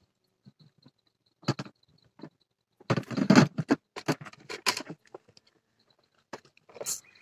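Close, irregular knocks, scuffs and rustles, densest about three to five seconds in: an angler's footsteps and handling of gear on the rocks right beside the phone. A short sharp hiss comes near the end.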